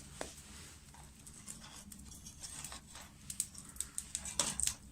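Faint, scattered clicks and light knocks, a few more of them near the end, over a low steady background.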